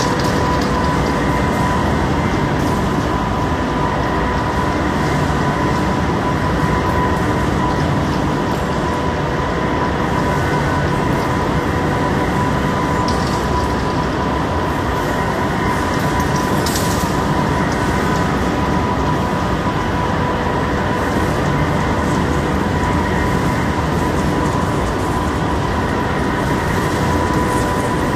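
Machine tool cutting cast steel: a loud, steady mechanical noise with a constant whine that does not change.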